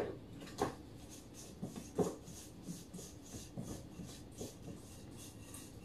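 Scattered light knocks and soft scraping from mixing a minced-garlic, parsley, pepper and butter seasoning in a small bowl. The clearest knocks come near the start and about two seconds in.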